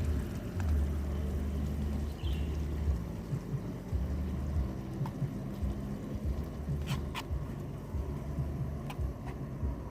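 Wind buffeting the microphone, a low rumble that comes and goes in gusts, with two sharp clicks about seven seconds in.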